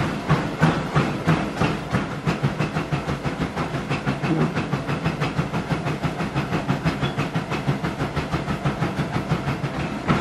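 Running footfalls on a motorized treadmill belt at about 5 miles per hour, an even, quick rhythm of thuds over the steady hum of the treadmill's motor and belt.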